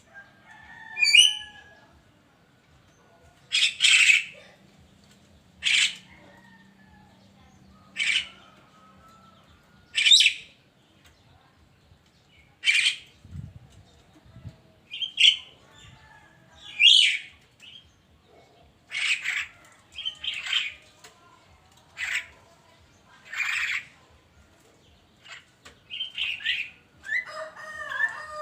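A myna calling over and over, about one short harsh call every two seconds, some mixed with whistled, gliding notes.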